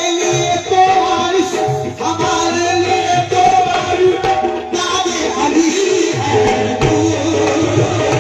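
Live qawwali music: harmoniums playing a held, stepping melody over a steady hand-drum rhythm.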